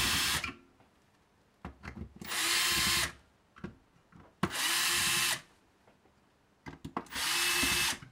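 Handheld electric screwdriver running in short bursts of about a second each, with pauses between, as it backs out the screws holding the printer unit. There are a few small clicks in the gaps.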